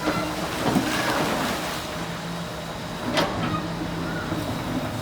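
Excavator engine running steadily, with one sharp knock about three seconds in.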